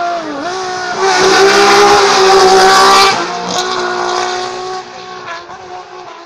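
Race car engine going by close at hillclimb speed: its pitch dips briefly, then it runs high and loud with a rush of noise for about two seconds as the car passes, and fades as it climbs away.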